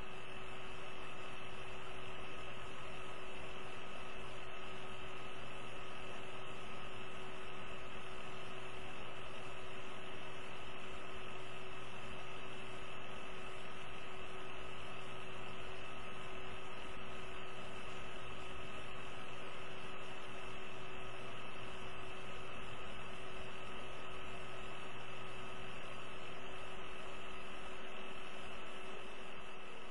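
Steady electrical hum and hiss with a few constant high whining tones, unchanging throughout, and a low rumble that fades near the end.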